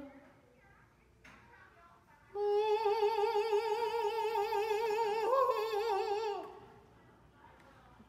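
A voice singing one long held note in a mock-operatic style with wide vibrato, lasting about four seconds, its pitch stepping up briefly near the end before it stops.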